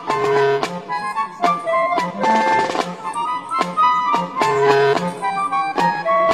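Background music: a melody of short notes over a steady beat.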